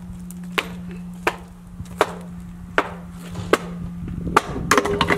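A hammer striking the wooden formwork boards of a window opening, knocking them loose: a series of sharp knocks about every three-quarters of a second, three in quick succession near the end. A steady low hum runs underneath.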